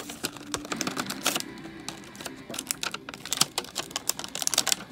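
Stiff clear plastic toy packaging being pried open and handled: a rapid, irregular crackle of clicks and crinkles.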